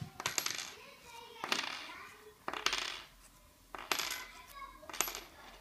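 Metal pins of a knot-tying jig clinking as they are handled and set down: about five sharp clinks roughly a second apart, each with a brief metallic ring.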